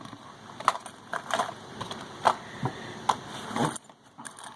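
Small gear being stuffed back into a backpack's fabric pocket: irregular clacks and knocks of hard items against each other, with rustling of the bag fabric.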